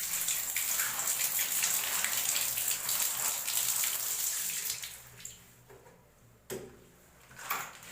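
Water running and splashing as pieces of goat lung are washed by hand, stopping a little over halfway through; then a single sharp knock.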